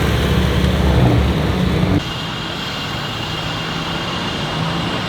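Hyundai i30 N's turbocharged four-cylinder engine and exhaust running loud and deep. About two seconds in there is an abrupt cut to a quieter, steady engine drone with a thin high tone over it.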